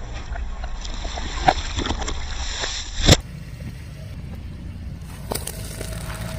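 Car tyre rolling slowly over objects and crushing them, with scattered crackles and clicks over a low engine rumble. An abrupt cut about three seconds in gives way to a quieter stretch of the same low rumble and a few clicks.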